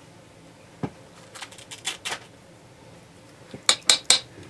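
Small hard craft supplies being handled on a table: a few light clicks and taps, then three quick sharp clicks near the end.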